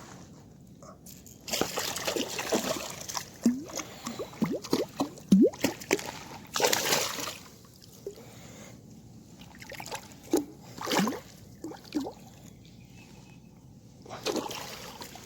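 Water sloshing and splashing in irregular bursts, with short gurgles, as a freshly landed jack crevalle is handled at the water's edge; the loudest splashing comes about two seconds in and again near seven seconds.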